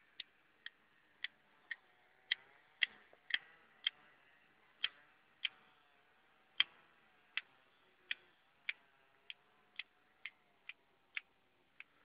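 Small hand pruning shears (secateurs) snipping young thuja shoots: about twenty short, crisp snips, roughly two a second at uneven spacing.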